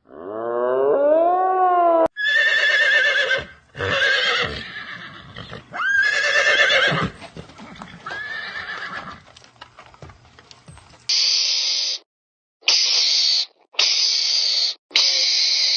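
A horse whinnying several times, long wavering calls one after another. About eleven seconds in, the sound changes to four short bursts of harsh hissing noise that start and stop abruptly.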